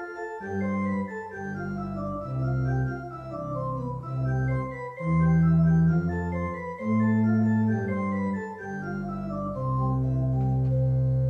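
Church organ playing a slow instrumental passage of moving chords, settling into a long held chord near the end.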